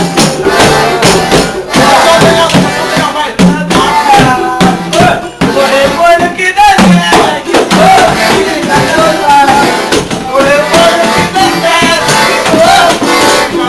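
A band playing: a voice singing over rattling hand percussion and steady beats.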